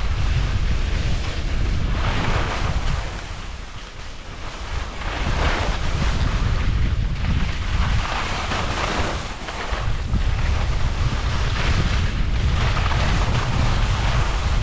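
Heavy wind buffeting the microphone while moving fast downhill on snow, with the hissing scrape of edges across chopped-up snow swelling and fading every few seconds as each turn is made.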